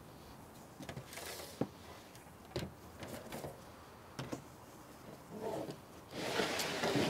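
Light knocks and clinks of pans and utensils being moved around on a prep table, with a louder rustling noise near the end.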